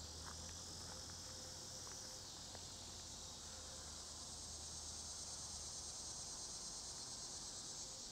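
Insect chorus: a steady, high-pitched chirring that swells slightly in the second half.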